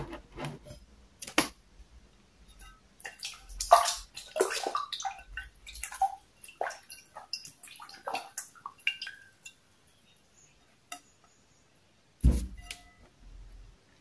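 Close-miked eating-table sounds: a scatter of small clicks, taps and wet, slippery noises from hands and dishes handling pounded yam and okra soup, then one heavier knock about twelve seconds in.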